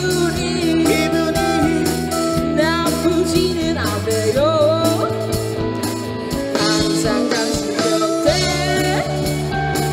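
Live rock band playing: electric guitars, bass guitar and drums under sung vocals.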